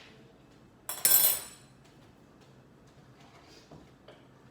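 A single sharp clank of kitchenware, cookware or a utensil, about a second in, with a short bright ring, followed by a few faint clicks.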